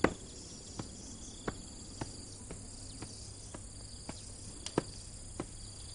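Crickets chirring steadily in the background, with a regular tapping of footsteps on a hard floor, a little under two steps a second.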